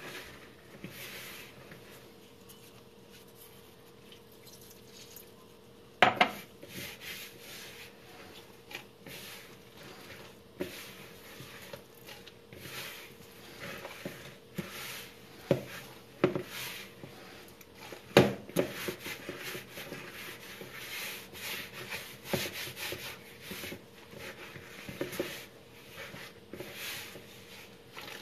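Gloved hands mixing and kneading a soft, wet dough of flour, milk and egg in a plastic bowl: irregular rubbing and slapping strokes, with a few sharp knocks, the loudest about six seconds in and again near eighteen seconds.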